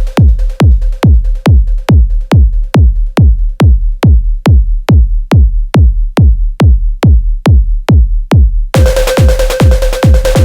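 Live techno from a drum machine: a steady four-on-the-floor kick drum, each kick a thump falling in pitch, about two and a third a second, playing nearly alone. Near the end, hi-hats and a held synth tone come back in over the kick.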